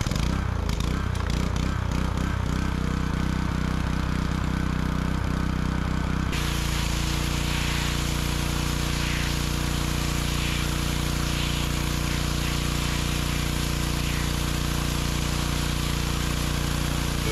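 Pressure washer running steadily: a motor hum under the hiss of the water jet. The sound shifts abruptly about six seconds in, the hiss growing fuller.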